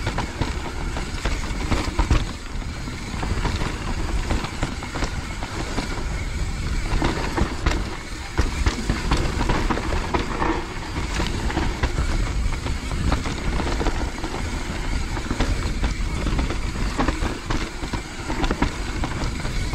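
Mountain bike riding fast down a wet, root-covered dirt trail: a continuous rattle of tyres and bike, broken by frequent sharp knocks as it rolls over roots and small drops.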